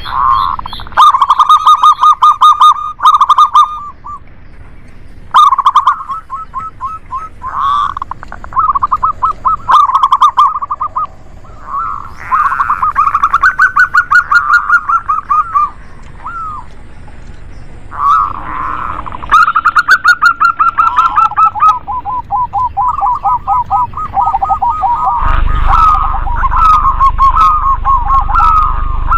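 Zebra doves (perkutut) cooing, a male and a female, in repeated bouts of rapid staccato trilled notes. Near the end the calls of more than one bird overlap, over a low background rumble.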